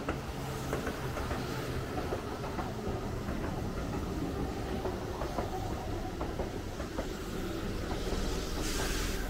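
A train passing on the adjacent railway line: a steady rumble with irregular clicks of wheels over rail joints, and a rush of hiss that builds near the end.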